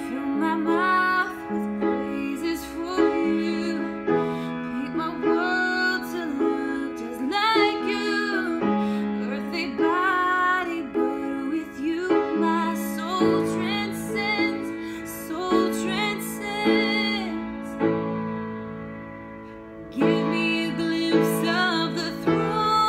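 A woman singing a slow ballad with grand piano accompaniment. About three-quarters of the way through, the voice stops for a couple of seconds and the piano plays softly on its own before the singing comes back in.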